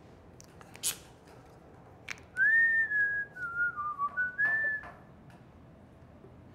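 A person whistling a short tune of a few notes, starting about two and a half seconds in and lasting a couple of seconds. A single sharp click comes about a second in.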